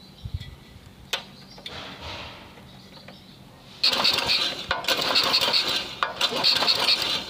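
Small petrol engine of a water pump being cranked with its pull starter while its spark plug is out, in several pulls from about four seconds in; the first seconds hold only a few light knocks.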